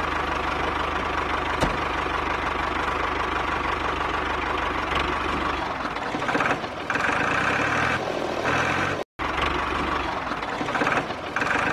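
Diesel tractor engine idling with a steady knock, cutting out briefly about nine seconds in.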